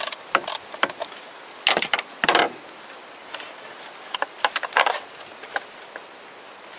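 Irregular clicks, clinks and short scrapes of a socket tool and plastic engine-bay parts being worked by hand, in a few clusters with short pauses between.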